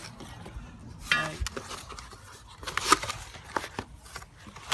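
Handling noises from unpacking a power tool: packaging rustling, with scattered clicks and knocks as parts are lifted and set down, one sharp knock about three seconds in.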